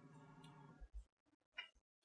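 Near silence: room tone, with two or three faint brief clicks.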